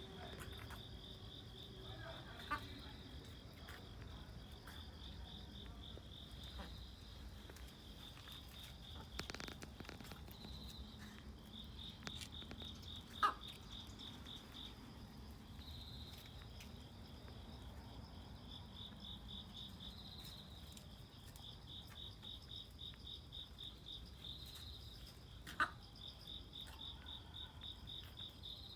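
Crickets chirping in repeated trains of rapid, high-pitched pulses, broken three times by a short, sharp sound.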